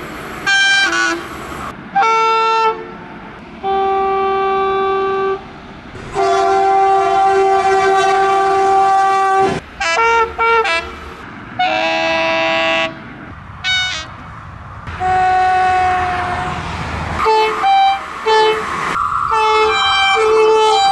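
Electric locomotive air horns sounding a rapid series of blasts, several tones at once. Short toots alternate with longer held blasts, the longest lasting about three seconds, over the steady rushing noise of passing trains.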